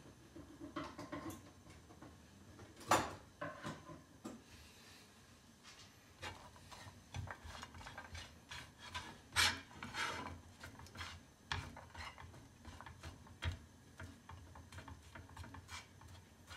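Silicone spatula scraping and knocking on a nonstick crepe pan as diced salami and sucuk are stirred, in irregular strokes. There is a sharp knock about three seconds in and another near the middle.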